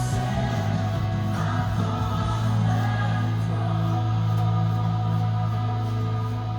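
Background music with choral singing over a steady low drone.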